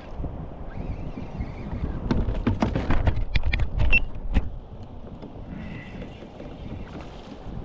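Wind and water noise on the microphone, with a run of sharp irregular knocks and clunks from about two to four and a half seconds in, as the kayak-mounted camera is bumped and handled.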